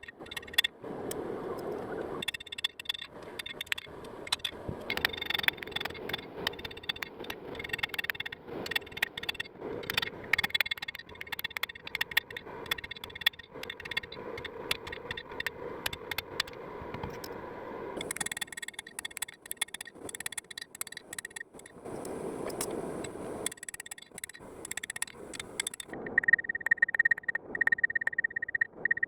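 Hand tools working steel: a long run of irregular taps and scrapes, with a metallic ringing at times and a steady ring near the end.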